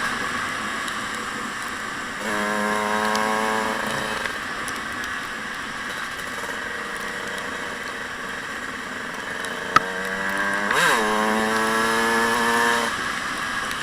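Dirt bike engine running, held at steady revs for a couple of seconds, then again later after a quick blip up and down in revs.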